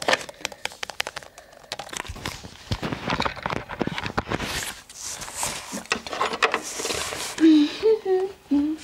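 Handling noise: rustling and clicking as the camera and plastic toy figures are moved about by hand, with voices near the end.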